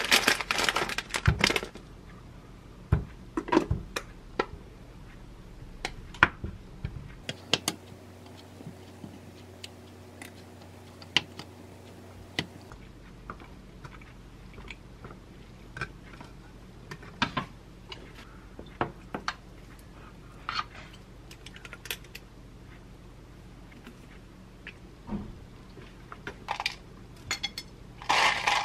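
Food preparation at a kitchen counter: scattered soft knocks and clicks of a knife on a wooden cutting board and of handling food and a bowl, over a low steady hum. Near the end comes a brief rattle of coconut chunks tipped from a plastic container onto a yogurt bowl.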